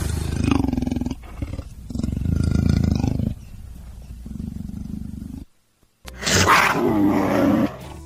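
Leopard calling: a series of loud, low roaring calls, each lasting about a second, with a brief break after the middle before one more loud call.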